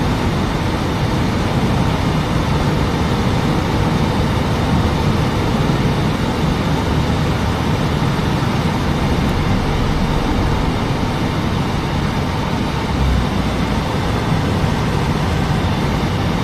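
Steady road noise of a moving car, with engine and tyre rumble, heard from inside the cabin.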